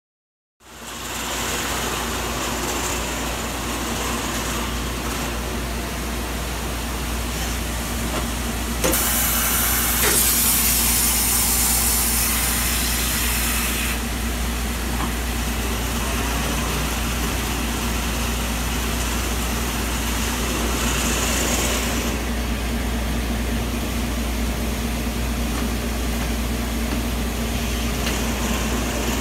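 Hanwha TechM XD20H Swiss-type CNC lathe running a machining cycle, with a steady hum and coolant oil spraying onto the tooling. A louder hiss lasts about five seconds, starting roughly a third of the way in.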